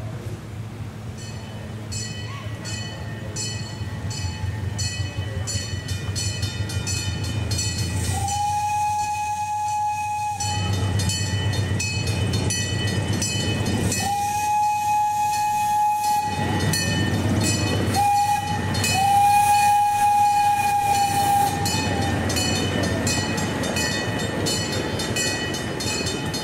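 Miniature train's whistle blowing the grade-crossing signal, long, long, short, long, over a Griswold mechanical crossing bell ringing in steady, rapid strokes. The train's low running rumble grows as it nears the crossing.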